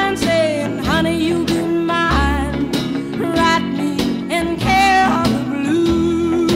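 Country song recording: the band plays a guitar-led passage with sliding, bending notes.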